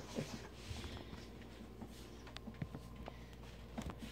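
Low steady hum of a quiet room with a few faint, scattered ticks and clicks.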